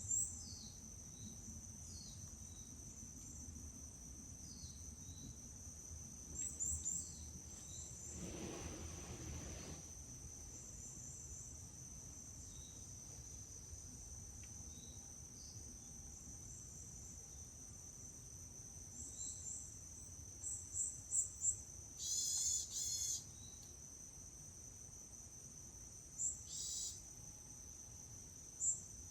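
Forest ambience: a steady high-pitched insect trill from crickets throughout, with scattered groups of short bird chirps. A soft rush of noise swells briefly about eight seconds in, and two louder, harsher calls come near the end.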